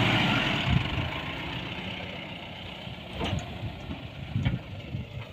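Diesel engine of a Mahindra off-roader that has just made it up a sand dune. The engine noise drops away over the first couple of seconds and settles to a low rumble, with a few faint knocks.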